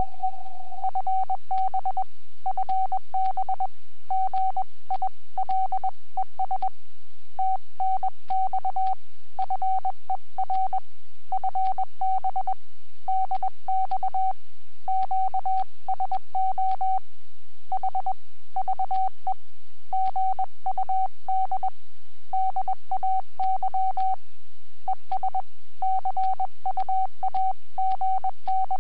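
Morse code (CW) from an amateur radio transceiver on the 30-metre band: a single steady pitched tone keyed on and off in dots and dashes, with short gaps between characters and longer gaps between words. A low steady hum runs underneath.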